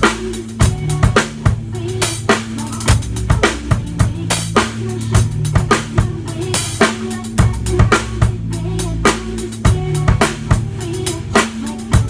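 Acoustic drum kit played steadily along to a recorded song: dense kick and snare hits over the track's deep, sustained bass line.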